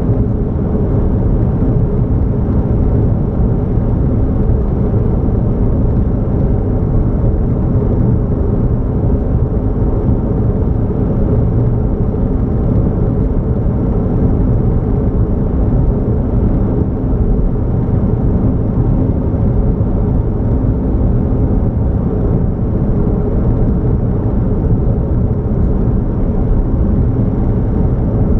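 Steady low rumble of a car being driven at an even speed, with road noise and no change in pace.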